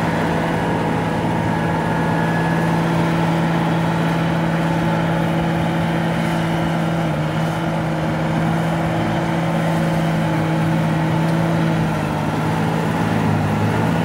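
Tractor engine running steadily while pulling an implement through the field, a constant drone whose pitch shifts slightly about halfway through.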